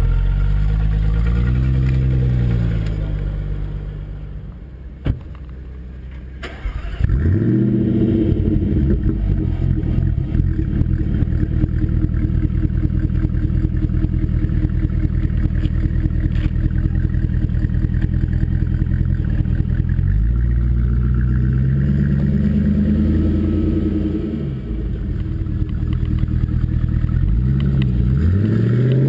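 Sports car engine revving up and down, dropping away to a brief lull about five seconds in, then running loud and steady with a fast pulsing beat and revved again several times near the end.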